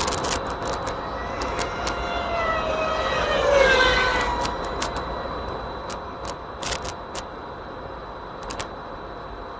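FPV racing drone's motors and HQ propellers whining as it flies past, the pitch rising and then falling, loudest about three and a half seconds in, then settling to a fainter steady hum. A few short clicks are scattered through it.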